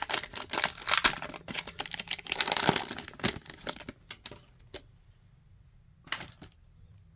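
Topps Chrome trading cards being flipped and slid against one another in the hands: a quick run of clicks and rustles for about four seconds, then a few single clicks.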